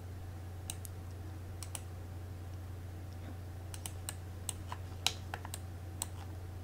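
Irregular clicks from a computer mouse and keyboard, about a dozen of them, bunched mostly in the second half, as supports are placed in slicer software. A steady low hum runs underneath.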